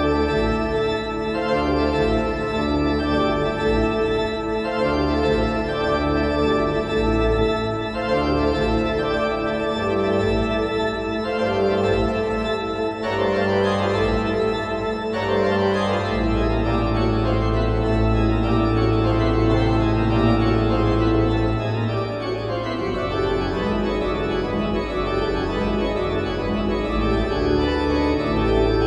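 Pipe organ playing a fast toccata: dense full chords over rapid running note figures, with a long low pedal note held for several seconds from about halfway through.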